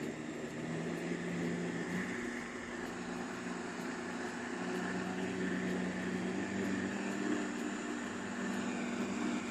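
A commercial grinder blender's motor running steadily as it blends, a continuous whirring hum with slight shifts in pitch.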